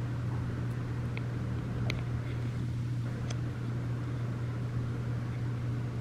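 Steady low mechanical hum, with a few faint, short high ticks about one, two and three seconds in.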